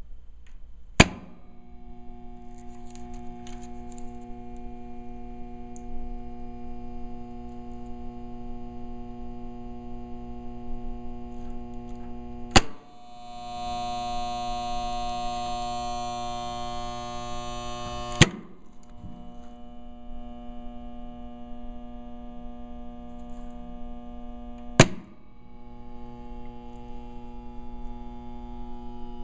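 Cutler-Hammer 30-amp lighting contactors clacking as they pull in and drop out, four sharp clacks several seconds apart, over a steady electrical hum from the panel. Between the second and third clack the hum grows louder and buzzier while the contacts are closed.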